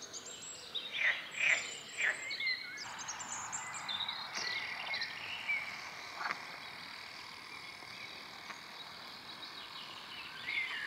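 Birds and frogs calling around a pond. Several sharp calls come in the first three seconds, then a steady high chorus continues with the odd single call.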